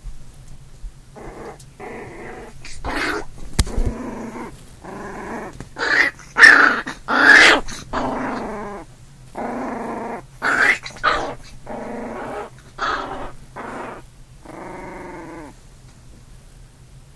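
Puppies play-fighting: a puppy growls in about fifteen short, separate bouts, with a few louder, higher-pitched snarls in the middle.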